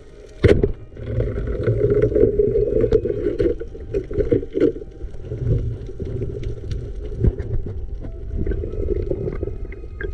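Water splashing and sloshing, with a sharp knock about half a second in and scattered small clicks.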